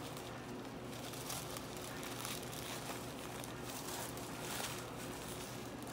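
Paper sandwich wrapper crinkling and rustling as a sub is rolled up and wrapped by gloved hands, over a steady low hum.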